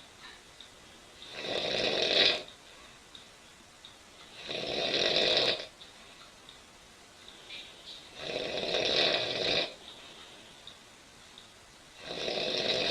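A sleeping woman snoring loudly: four snores, each a little over a second long, about one every three and a half seconds, the last still going at the very end.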